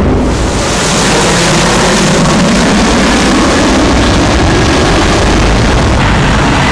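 Twin-engine jet airliner passing low overhead on its landing approach: a loud, steady engine roar.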